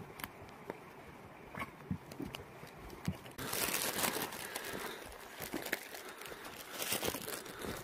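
Sharp snaps and cracks of small twigs, then loud crackling rustle and crunching of dry branches and leaf litter being cleared by hand, starting about three and a half seconds in and again near the end.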